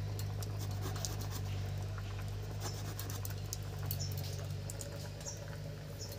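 Aubergine being sliced into rounds against a boti, a fixed curved blade: a run of small, irregular crisp cuts and clicks over a steady low hum.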